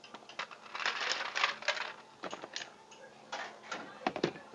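Ice cubes dropped into a plastic blender jar of milk, clattering against the jar and each other in a quick run of clicks and knocks, loudest about a second in.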